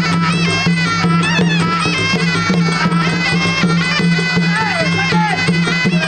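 Traditional Khmer boxing-ring music: a nasal reed oboe (sralai) plays a wavering, ornamented melody over a steady low drone.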